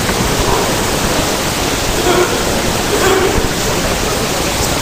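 Loud steady hiss with no rhythm, with a voice faintly audible beneath it.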